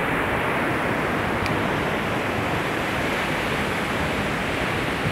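Ocean surf washing up the beach: a steady rush of breaking waves and foam running over the sand.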